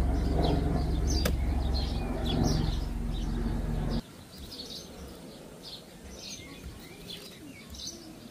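Birds chirping repeatedly over a loud, low, steady hum that cuts off suddenly about four seconds in, leaving the chirps over quieter background noise; a single sharp click just over a second in.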